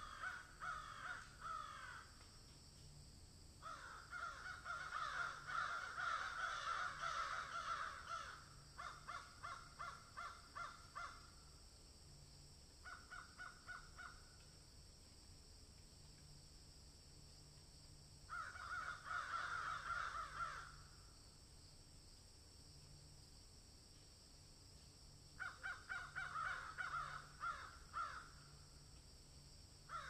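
Peacock calling in bouts of quick repeated notes, each bout one to four seconds long, about six bouts with quieter gaps between.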